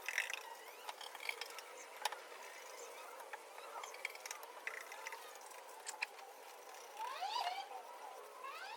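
Scattered light clicks and taps of a paintbrush working paint onto a car's bare steel floor pan, with a few rising bird chirps near the end.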